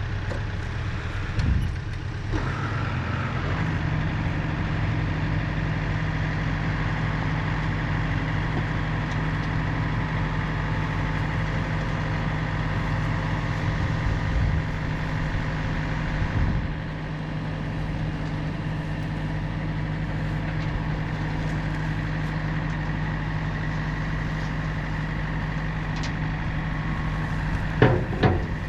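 A vehicle engine runs steadily. Its note steps up about three and a half seconds in and holds, with a few light knocks.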